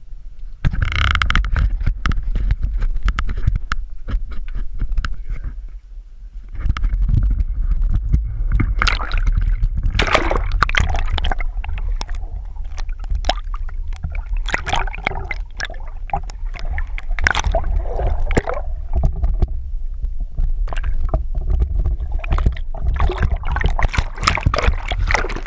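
Water gurgling and sloshing around a landing net pushed under the surface, heard from underwater, with a heavy low rumble and irregular splashes.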